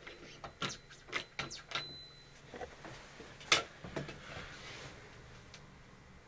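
Scattered clicks and knocks, the loudest about three and a half seconds in, followed by a brief hiss.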